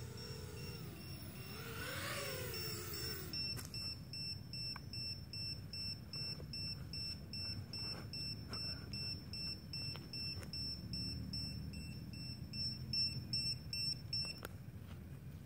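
FPV quadcopter's motors whining, rising and falling in pitch, for the first three seconds and cutting off. Then its buzzer beeps high-pitched about two times a second until it stops near the end.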